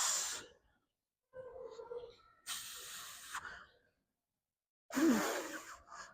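A man breathing hard after a set of biceps curls: four forceful, airy exhales with pauses between them, the last with a short voiced groan.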